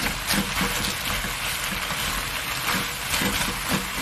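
Squid and vegetables sizzling as they are stir-fried over high heat. A silicone spatula and a wooden spoon scrape and toss them in the pan in irregular strokes.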